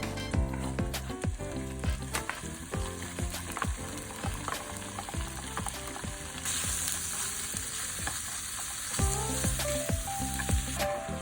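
A steady sizzling hiss that grows louder and brighter about six and a half seconds in and drops back shortly before the end, over background music.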